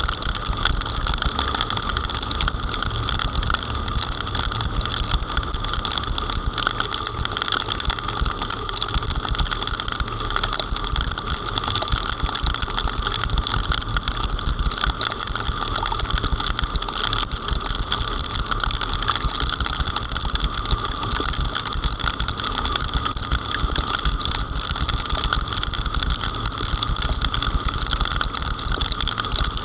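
Heavy rain pattering thickly and steadily, close to the microphone, with a steady low rumble underneath.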